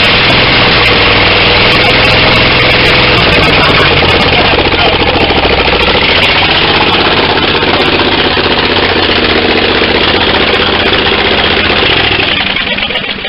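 23 hp Briggs & Stratton engine on a garden tractor running loud and steady with no exhaust fitted. The sound falls away near the end.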